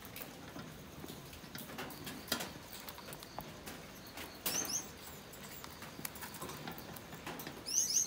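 Budgerigars pecking and scratching in a box of seed, a scatter of small clicks and rustles, with a short run of high rising chirps about halfway through and a quick burst of chirps near the end.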